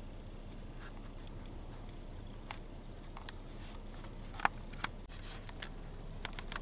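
A few short, sharp clicks and light rustles, the loudest about four and a half seconds in, over a steady low rumble.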